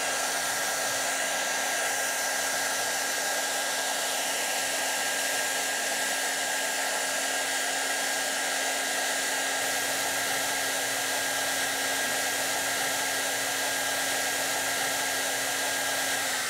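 Handheld hair dryer running steadily at full blast on its coldest setting: an even rush of air with a thin steady high whine and a low hum underneath.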